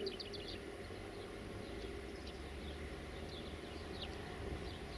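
Small birds chirping with short high notes, a quick run of them at the start and then single chirps about once a second, over a steady low rumble.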